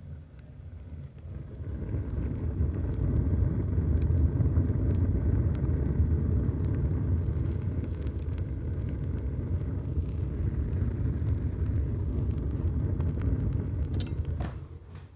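Wood-fired rocket stove burning with a strong draft: a steady low rumble of the fire with a few faint crackles. It builds over the first couple of seconds and drops away near the end.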